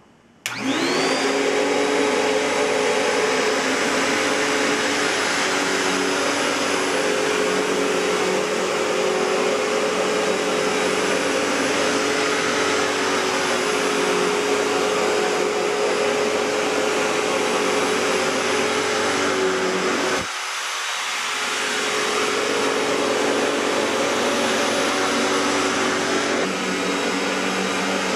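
1994 Riccar N2000 upright vacuum cleaner with its Panasonic-built motor, switched on and spinning up within the first second, then running steadily with a high whine over rushing airflow. About two-thirds of the way in, its sound suddenly thins and drops a little, then builds back up over a couple of seconds.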